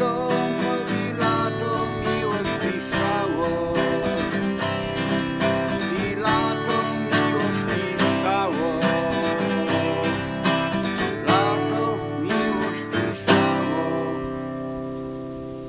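Acoustic guitar played with strummed and picked chords, ending on a last stroked chord about 13 seconds in that is left to ring out and fade.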